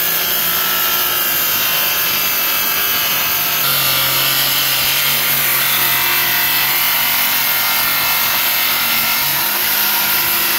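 Ryobi ONE+ cordless track saw, fitted with a Diablo blade, running steadily while it is fed slowly through a stack of four sheets of 15/32-inch plywood. From about a third of the way in until near the end, the motor note drops lower and the cutting gets a little louder as the blade works under heavier load.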